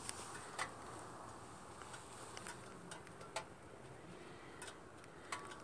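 Quiet background with a few faint, scattered clicks spread across several seconds.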